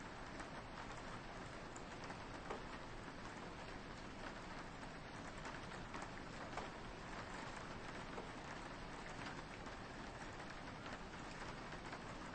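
Soft, steady rain on a window, a constant hiss with many small drop taps scattered through it.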